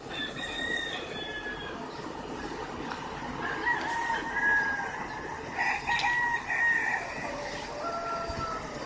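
Roosters crowing, several drawn-out calls one after another and overlapping, over a steady background hiss.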